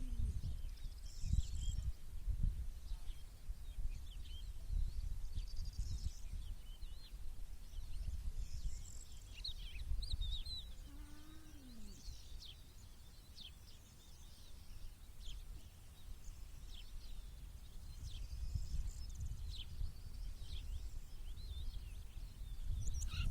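Several small birds chirping and singing in short, scattered high calls, over a gusty low rumble. About halfway through, a single lower call falls in pitch.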